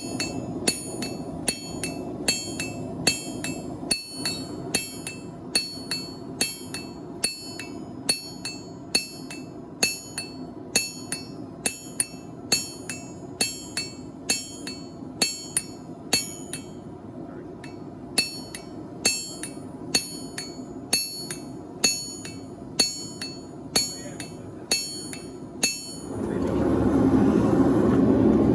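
Hammer striking steel on an anvil in a steady rhythm, about one ringing clang every two-thirds of a second, with a short break about two-thirds of the way through, as a farrier's file is forged into scissors. The hammering stops near the end and a louder steady rushing noise takes over.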